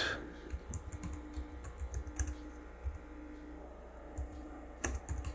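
Keystrokes on the Asus Eee PC 701's small laptop keyboard as a short command is typed: scattered soft key clicks, with a few sharper, louder keystrokes near the end.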